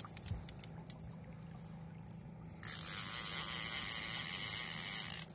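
Steady high-pitched chirring of night insects, with a low steady hum underneath. The chirring thins out about a second in and comes back stronger at about two and a half seconds.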